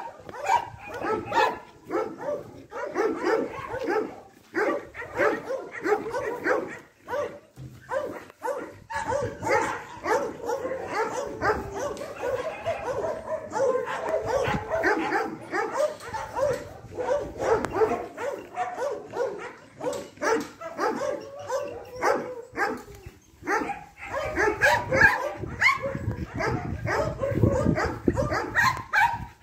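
Dogs barking rapidly and without pause, one sharp bark after another.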